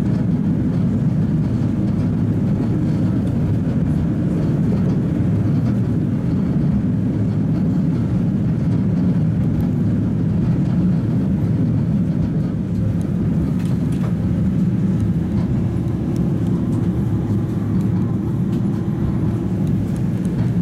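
Inside the passenger saloon of a Tatra T3 tram running between stops: a steady low rumble of the tram in motion, with a faint steady hum joining about halfway through.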